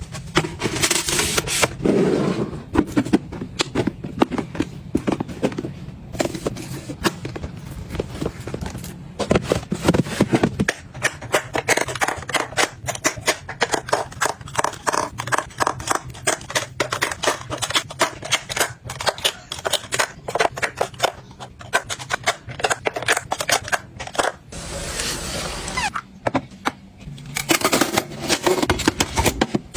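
Small hard objects, likely plastic, clicking and tapping as they are handled, opened and set down during organizing, in a rapid, dense run of clicks that eases off briefly near the end.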